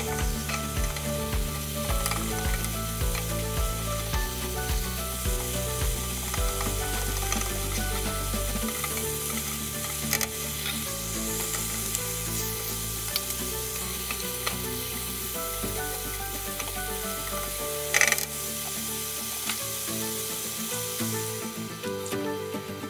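Ground beef and diced tomatoes sizzling in a frying pan, with a spatula stirring and diced carrots and potatoes being tipped in. There is a brief loud clatter about eighteen seconds in, and the sizzle thins near the end. Background music plays underneath.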